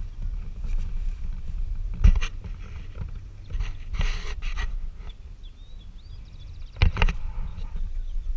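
A low, steady rumble with a few sharp knocks on and around the aluminium boat: one about two seconds in, a cluster around four seconds and another near seven seconds. Birds chirp and trill faintly in the background.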